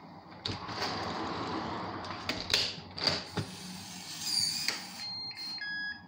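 Yale Conexis L1 smart door lock being locked: a series of sharp clicks and rattling from the handle and multipoint lock mechanism, then a two-note electronic beep near the end.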